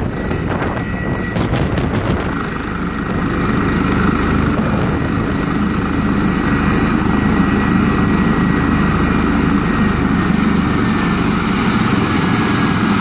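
Airbus H145M helicopter running on the ground just after landing, main rotor turning. Its twin turboshaft engines give a steady whine over the rotor noise.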